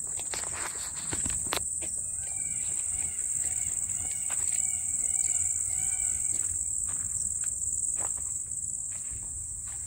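Chorus of night crickets, a steady high-pitched trilling that runs on without a break, with a few light clicks and rustles from movement.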